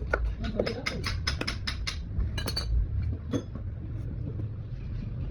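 A quick run of light, sharp clinks and taps of small hard objects, about a dozen in the first three seconds and one or two more after, over a steady low rumble.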